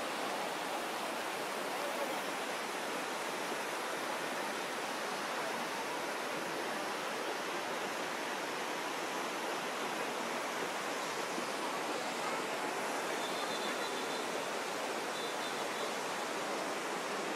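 Swollen river in flash flood rushing past, a steady even noise of fast, turbulent muddy water.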